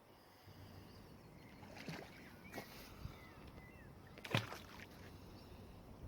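Faint water splashes and knocks as a heavy magnet-fishing find is dragged through the river on its rope, the sharpest knock about four seconds in. A few short high chirps come in between.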